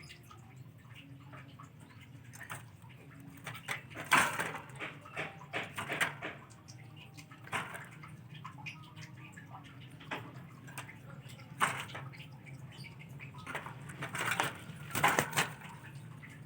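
Irregular bursts of splashing and knocking water, in short clusters, over a low steady hum.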